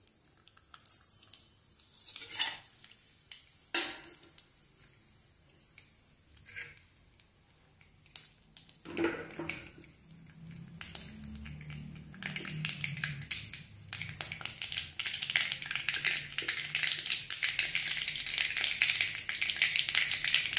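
A few light clinks and knocks of utensils, then hot oil in an iron kadai sizzling and crackling. The crackle grows from about halfway through and is dense and loudest near the end, as the tempering starts to fry.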